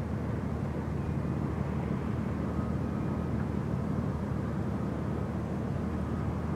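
Steady low engine drone of a passing general cargo ship.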